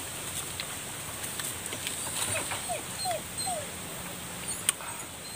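A dog whimpering: a run of four short, falling whines about halfway through, with a few sharp clicks, the sharpest shortly before the end.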